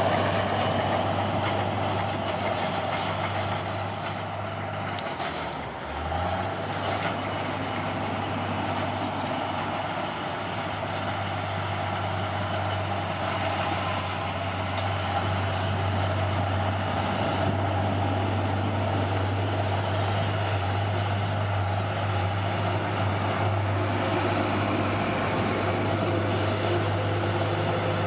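Caterpillar D6R bulldozer's diesel engine running steadily. Its note sags briefly about five seconds in, then picks back up.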